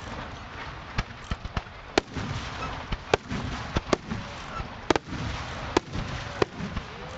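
Aerial firework shells bursting at close range: about a dozen sharp bangs at irregular intervals, over a steady crackle.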